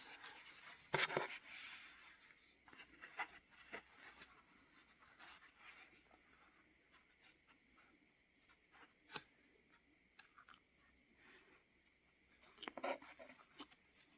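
Hand sewing: soft scratchy rustles of needle and thread drawn through quilt fabric, with a few faint clicks, louder about a second in and near the end.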